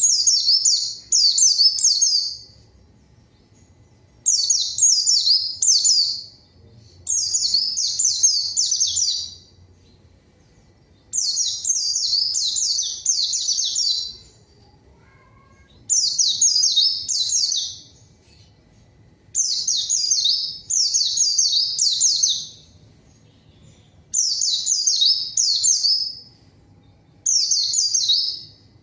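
White-eye (pleci) singing in full song: phrases of about two seconds of rapid, high chattering notes, each sliding downward, repeated about every three seconds with short pauses between.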